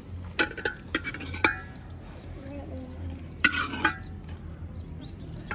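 Stainless-steel dishes and utensils clinking and knocking together, with a short metallic ring after each knock: a cluster of knocks in the first second and a half and another about three and a half seconds in.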